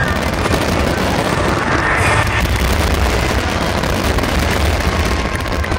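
Aerial fireworks going off in a dense finale barrage: overlapping booms and crackle merge into a continuous rumble, with a brighter crackle about two seconds in.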